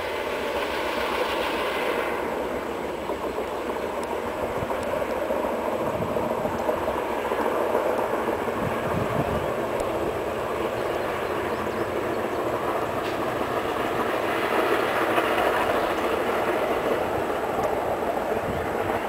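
Railroad maintenance-of-way track machines of an undercutter gang travelling along the track: steady running noise of their engines and wheels on the rails.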